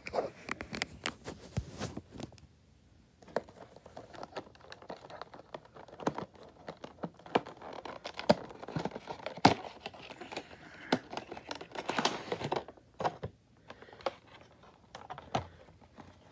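Cardboard model-airliner box being handled and opened: irregular taps, scrapes and clicks, with crinkling and tearing of packaging, loudest about three quarters of the way through.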